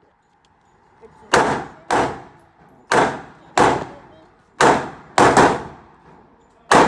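Gunshots at a shooting range: about eight shots fired at an uneven pace, a couple of them in quick succession near the middle. Each is a sharp crack that trails off briefly.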